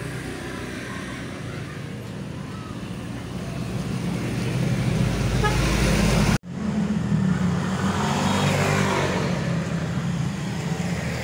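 Road traffic running steadily, with a vehicle growing louder toward the middle; the sound cuts out abruptly for an instant about six seconds in, then steady traffic noise carries on.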